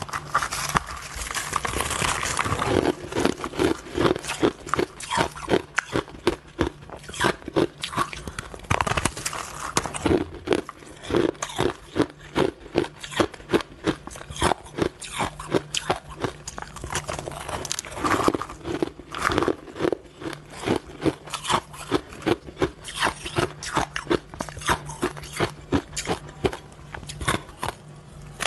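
Crushed, shaved ice being bitten and chewed: rapid, crisp crunching with louder bites recurring about twice a second.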